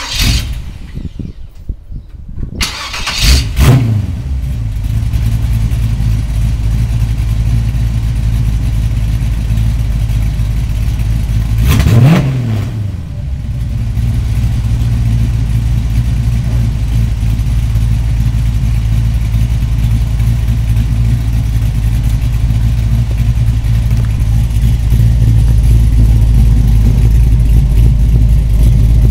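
Cammed Chevy 350 (5.7 Vortec) V8 through a 3-inch X-pipe exhaust with Magnaflow mufflers: the starter cranks for about two seconds, the engine fires and revs, then settles into a steady idle. About twelve seconds in it is revved once, the pitch rising and falling, before it drops back to idle.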